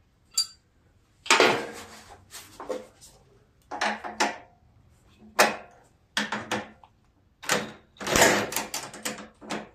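Short separate bursts of tool and metal-handling noise, about eight of them, as the last bolt on a mower deck mount is worked loose, with a rapid cluster of sharp clicks near the end.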